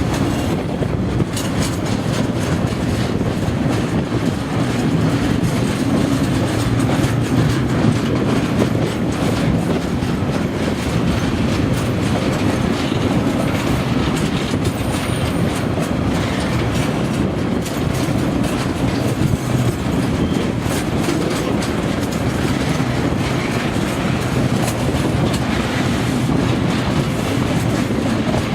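Freight train of the paper run rolling steadily past, its wheels clacking over the rail joints with a continuous low rumble.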